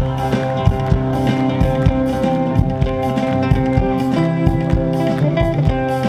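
Live fusion rock band playing a Kannada folk song arrangement: guitar with held notes over bass and a drum kit hitting steadily.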